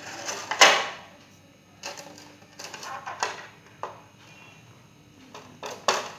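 Plastic fridge trays being handled, clattering with irregular knocks and scrapes; the loudest knock comes about half a second in.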